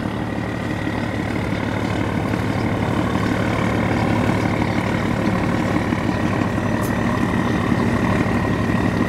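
Diesel engine of a passing container barge running steadily, a low even hum with a fast rhythm that grows slowly louder as the barge comes alongside.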